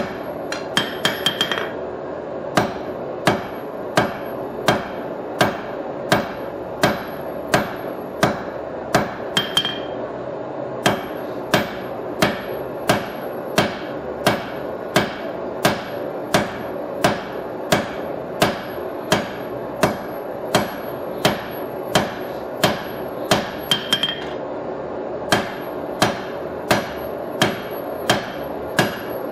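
Hand hammer striking a red-hot steel knife blank on an anvil: steady forging blows about one and a half a second, with a few brief runs of quick light taps between them.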